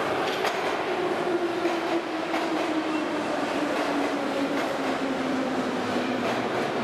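St Petersburg metro train running in the tunnel, heard from inside the car: a steady rumble with a motor whine that falls slowly in pitch as the train slows, and occasional clicks of the wheels over rail joints.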